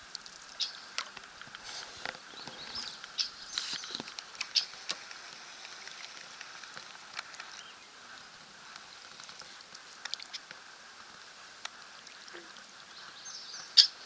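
Marsh birds calling from the cattails: scattered short chirps through the first few seconds, then a red-winged blackbird's trilled call near the end. A faint steady high hum runs underneath.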